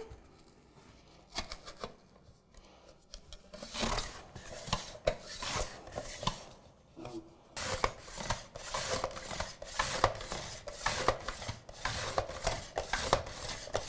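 Onion being sliced on a De Buyer Swing mandoline: the plastic hand guard pushed back and forth over the blade in quick repeated slicing strokes. The strokes start about four seconds in and come thicker and more steadily from about halfway.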